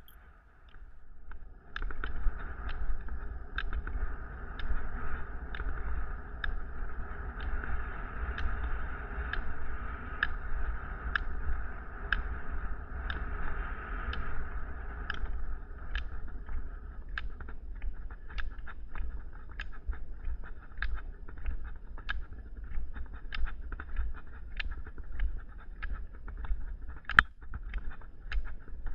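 Rollerskis rolling on asphalt with a steady hiss, and ski-pole tips clicking on the pavement about once a second. About halfway through the rolling hiss fades and the pole clicks come faster, about two a second, as the skier starts up the final climb.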